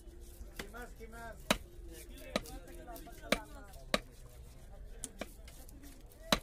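Heavy cleaver chopping fish on a wooden log chopping block: about six sharp chops, unevenly spaced, roughly one a second.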